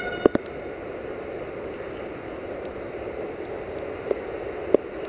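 LDE2100 (060-DA) diesel-electric locomotive approaching with a freight train, its Sulzer diesel engine running steadily under a hiss of rain. A few sharp clicks come just after the start and twice near the end.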